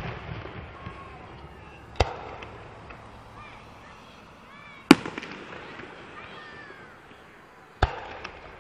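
Aerial fireworks shells bursting three times, about three seconds apart, each a sharp bang followed by a rolling echo that fades away.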